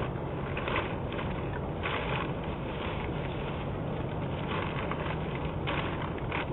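Steady rushing hiss picked up by an outdoor security camera's microphone, with a few short, louder rustles as a man rummages through items in the back of a pickup truck.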